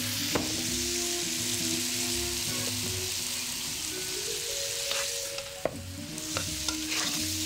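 Beef slices sizzling hard in a hot non-stick wok, steaming with a splash of water in the pan, with a few sharp taps of a metal spatula against the wok. The sizzle dies down about five seconds in.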